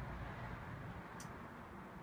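Faint outdoor background noise: a low rumble and a steady hiss, with one short high click about a second in.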